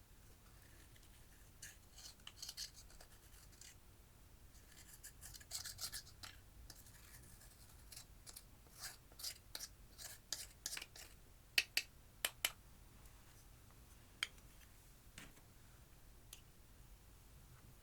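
Scattered scraping strokes of a tool against a hard container, then a cluster of four sharp clicks about two-thirds of the way in and a few single clicks after: makeup and slime being worked by hand.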